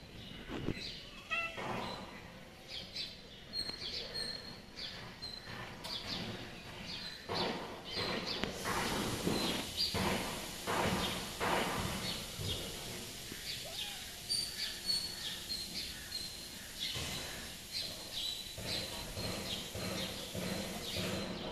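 Small birds chirping repeatedly, with scattered knocks and scuffling noises. A steady hiss comes in a little before halfway and stops near the end.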